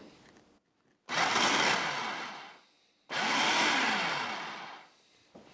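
Small food processor pulsed twice, two separate whirring bursts of about a second and a half each that fade away at their ends, its blade chopping cold diced butter into flour for a pastry crust.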